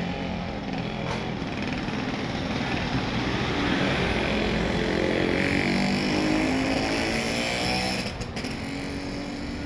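A motorbike engine passes close by on a street, growing louder through the middle and dropping away near the end, over steady street background noise.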